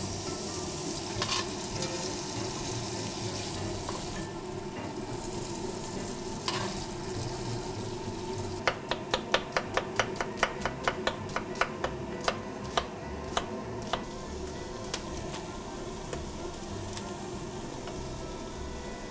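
Bacon sizzling as it fries in a black cast-iron pot, with a few knocks of a utensil. About halfway through, a knife slices an onion on a wooden cutting board in a quick run of chops, about four a second, lasting some five seconds.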